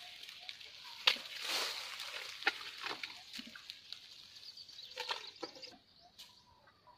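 Dry grass and cane stalks rustling and crackling as a tuskless bull Asian elephant handles and feeds from a pile of fodder with its trunk, with a few sharp snaps, the loudest about a second in.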